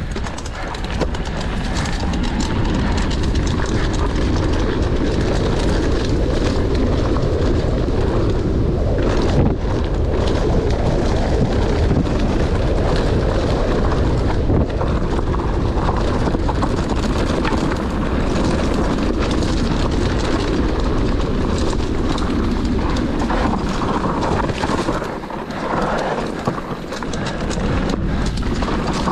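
Mountain bike riding fast down a dirt forest singletrack: a steady, loud rolling rumble of tyres on dirt, crossed by many small knocks and rattles from the bike over bumps.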